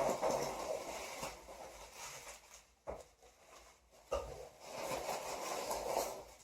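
Packing material rustling and crinkling as a parcel is unwrapped by hand, in two spells with a couple of sharp clicks or knocks between them.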